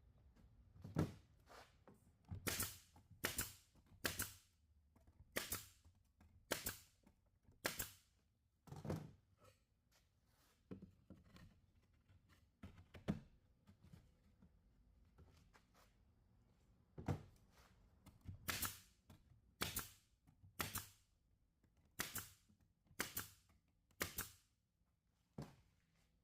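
A series of sharp knocks struck one at a time, about one a second, in two runs with a quieter gap in the middle.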